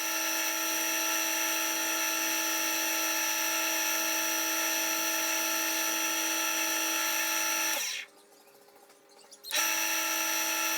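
Rikon wood lathe's motor running with a steady whine, switched off about eight seconds in and started again a second and a half later.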